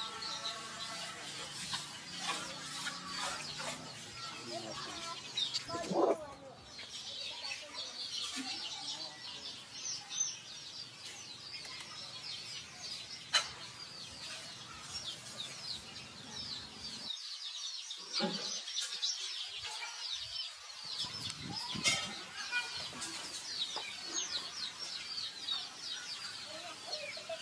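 Many birds chirping at once, with a few louder, lower calls standing out, one of them falling in pitch.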